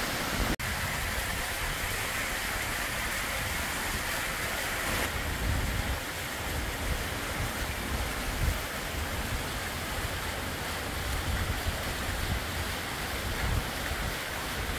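Strong gusty wind, around 30 mph, buffeting the microphone with an uneven low rumble over a steady rush. The sound briefly cuts out about half a second in.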